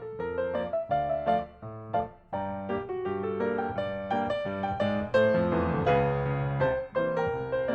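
Background piano music: a steady run of struck notes over held chords.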